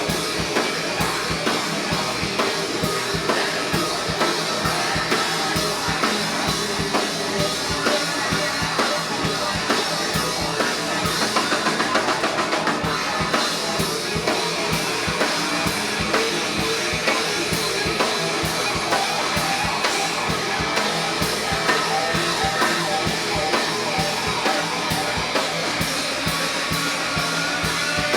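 Instrumental rock music with a full drum kit and bass drum driving a steady beat under guitar, without vocals.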